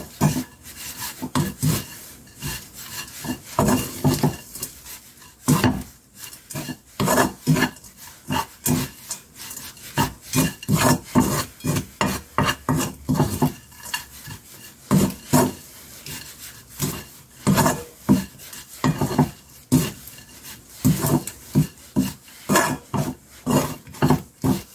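Wooden spatula scraping and knocking against a coated pan in quick, irregular strokes, stir-frying sticky soy-glazed dried anchovies.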